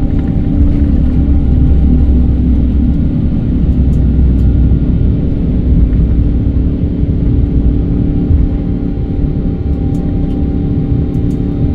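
Airbus A350 airliner's engines and airflow making a steady low rumble, with a few steady hum tones over it.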